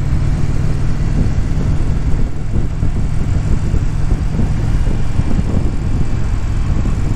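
Indian Challenger motorcycle's V-twin engine running steadily at cruising speed while riding, with a constant rush of wind noise over the microphone.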